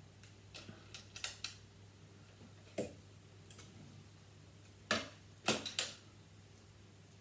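Plastic Lego pieces being handled and pressed together: a scatter of short sharp clicks, a quick cluster about a second in and the loudest few in quick succession about five seconds in, over a steady low hum.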